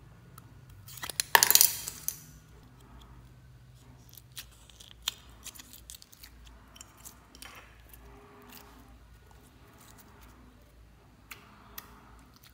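Small clear plastic slime container being handled: a loud crackle of plastic about a second and a half in, then scattered light clicks and taps.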